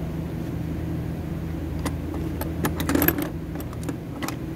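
Small metal parts and tools clicking and clinking on a workbench as a transfer case actuator is handled and greased, with a cluster of clinks about three seconds in. A steady low hum runs underneath.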